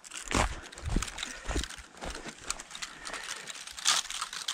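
Footsteps crunching over dry grass and twigs, with dull thumps about once every half second early on, then rustling and crackling of pine cones and dry twigs as hands handle them near the end.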